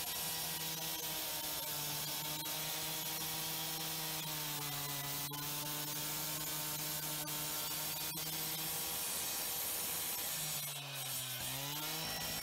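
Gas-powered cut-off saw running at speed as its blade grinds through a red clay brick. The engine note drops briefly twice, about halfway through and near the end, then picks back up.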